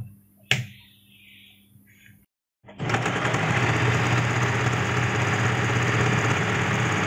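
Usha Janome Dream Stitch electric sewing machine sewing fabric at a steady speed, starting about two and a half seconds in after two short clicks. It runs smoothly and evenly, its shuttle race freshly cleaned and oiled.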